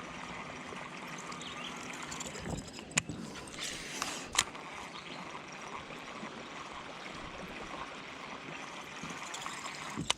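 Water trickling and gurgling steadily, with a sharp click about three seconds in and a louder one a second and a half later.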